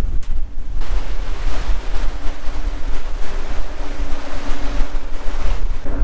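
Strong gusty wind buffeting the microphone with a heavy low rumble and rushing. From about two seconds in, a steady low hum runs underneath it: the docked tour boat's engine running.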